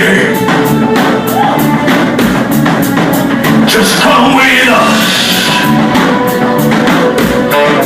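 Band playing an instrumental passage: guitar and sustained notes over a drum kit keeping a steady beat of about three strokes a second.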